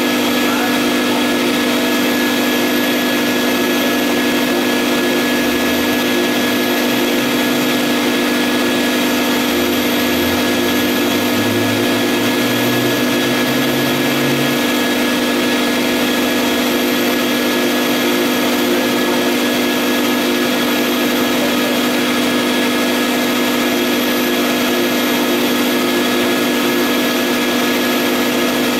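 Vutek UV-curable flatbed printer running as it prints on a rigid sign board: a loud, steady machine drone with a constant hum under it.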